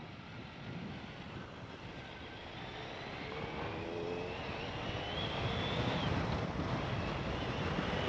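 Wind and wet-road noise of a BMW K1200GT motorcycle riding in heavy rain, with the inline-four engine note rising gradually in pitch from about three seconds in as the bike speeds up, the whole sound growing louder.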